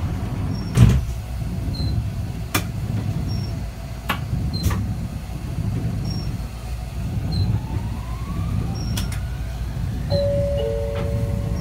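Cabin sound of a low-floor articulated tram running on street track: a steady low running rumble with a few sharp clicks from the wheels and rails, and a motor whine rising in pitch past the middle. Near the end a two-note chime sounds, the second note lower.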